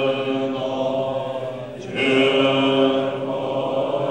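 Tibetan Buddhist monks chanting prayers together in low, long-held notes, with a brief breath pause a little under two seconds in before the chant resumes.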